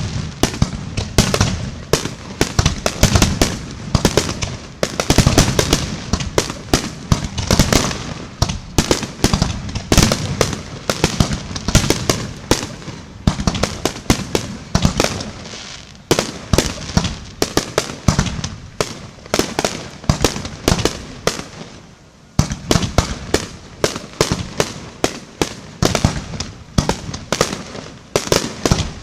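Fireworks display: a dense barrage of shell bursts and crackling bangs in rapid succession, easing briefly about three quarters of the way through and then picking up again.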